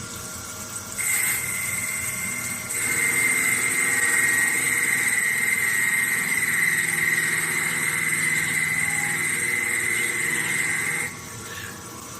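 CK6130 CNC lathe running under power: a steady high motor whine with a low hum beneath, starting about a second in, growing louder near three seconds in and cutting off about eleven seconds in.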